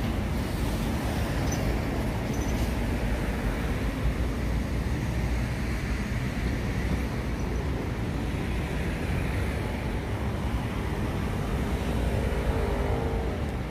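Steady low rumbling outdoor background noise with no distinct event standing out. A few faint pitched tones enter near the end.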